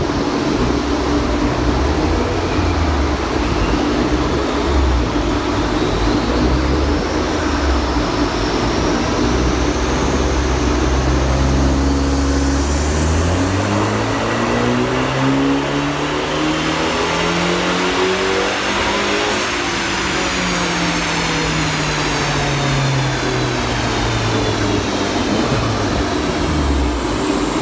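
Alfa Romeo MiTo Quadrifoglio Verde's 1.4 turbo four-cylinder, rear silencer removed, on a full-throttle dyno power run: it runs low and steady for about half the time, then the engine note climbs steadily for about six seconds and falls away again as it runs down. A little misfire comes near the top of the run, which the tuner puts down to the spark plugs. A steady hum runs underneath.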